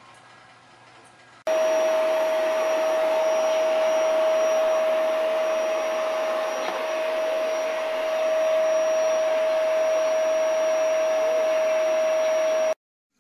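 Electric appliance motor running, a steady rush of air with one steady whine. It starts suddenly about a second and a half in, stays loud and even, and cuts off just before the end.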